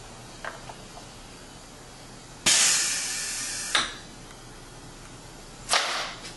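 Compressed air hissing out: a sudden loud hiss about two and a half seconds in that lasts just over a second and ends with a sharper puff, then a second short puff of air near the end.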